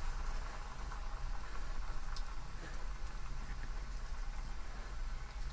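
Hands squeezing and pressing coarse, wet karamani (black-eyed pea) vada batter in a stainless steel bowl, with a soft crackling patter and a few faint ticks, over a low steady hum.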